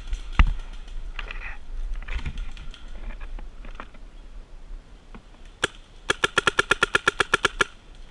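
Paintball marker firing: a single shot, then a rapid string of about fifteen shots at roughly ten a second near the end. There is a loud thump about half a second in.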